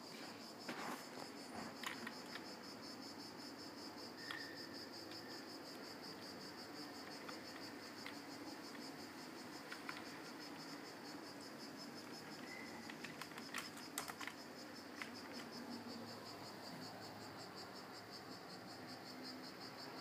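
Desktop PC running with a steady fan hum and a faint, steady high-pitched whine, while keyboard keys click now and then.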